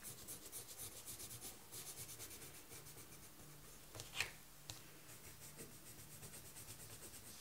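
Green coloured pencil shading on paper in quick back-and-forth strokes, a faint scratchy rubbing. A single louder click about four seconds in.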